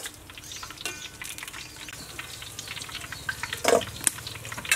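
Hot oil sizzling and crackling on a freshly deep-fried whole chicken just lifted from the wok, with one louder knock about three and a half seconds in.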